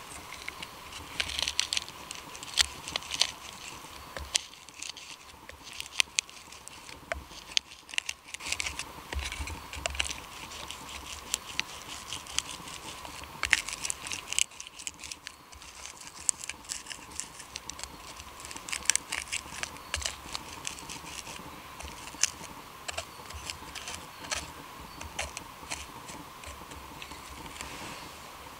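Knife blade scraping a piece of birch bark on a wooden stick, an irregular run of quick dry scratches that raises fine fluffy tinder, with a couple of brief pauses.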